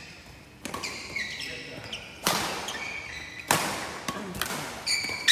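Badminton doubles rally: a string of sharp racket strikes on the shuttlecock, several in quick succession, with short shoe squeaks on the court between them.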